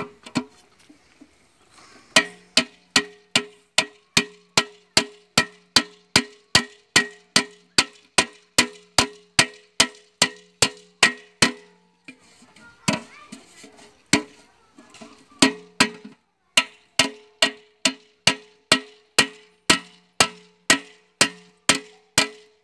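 Steel hammer striking an upturned metal pot (dekchi) set on an iron stake, at a steady rate of about three blows a second, each with a short metallic ring. The hammering nails an aluminium patch sheet over a leaking hole in the pot's bottom. It starts about two seconds in, breaks off for a few seconds past the middle apart from one lone blow, then resumes.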